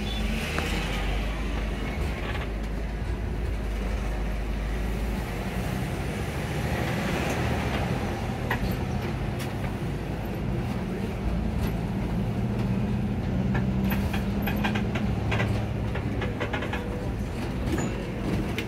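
Iveco bus engine running under way on a winding road, heard from inside the cabin near the driver as a steady hum and road rumble. The deep rumble eases after about five seconds, and a run of rattling clicks comes about two-thirds of the way through.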